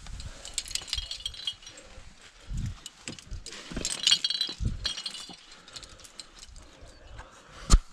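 Carabiners and protection racked on a climber's harness clinking and rattling in two bursts, about a second in and again around four seconds, as the climber moves up a rock crack. Low bumps in between, and a sharp click near the end.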